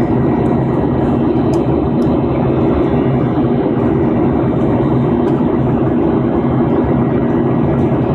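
Steady engine and airflow noise heard inside an airliner's passenger cabin during the climb after take-off, a constant low-pitched roar with a faint hum running through it.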